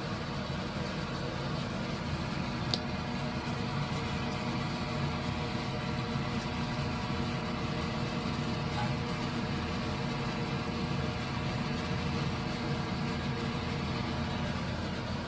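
Steady mechanical hum with a low drone and a hiss, like a kitchen exhaust fan running over the stove. A single short click comes about three seconds in.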